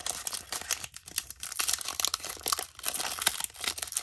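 Foil wrapper of a Pokémon trading-card booster pack crinkling and tearing as it is pulled open by hand: a quick, irregular run of crackles.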